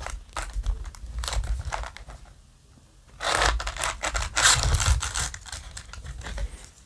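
Foil-wrapped Yu-Gi-Oh! booster packs crinkling and scraping against the cardboard display box as they are pulled out by hand. The rustling comes in irregular bursts, dies down about two seconds in, then returns louder for a couple of seconds.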